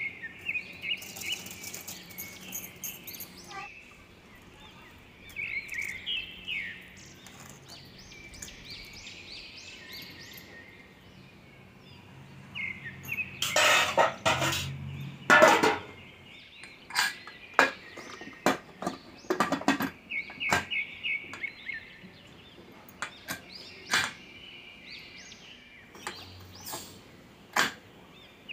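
Metal clanks and sharp clicks of an aluminium pressure cooker and its lid being handled, loudest about halfway through, with scattered clicks after. Birds chirp in short bursts every few seconds behind it.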